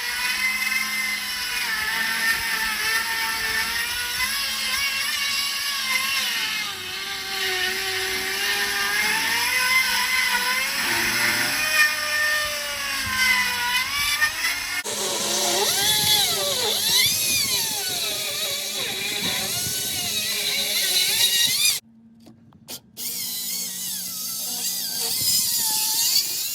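Handheld electric power tool's motor whining as it cuts, its pitch sagging and rising with the load; the sound breaks off and changes abruptly twice.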